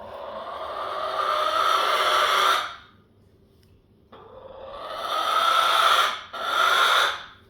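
Hen making loud, drawn-out rasping calls that sound like a dinosaur: one call that swells over about three seconds, then after a short pause a second swelling call and a shorter third one right behind it. She is calling because she wants to go back to her flock.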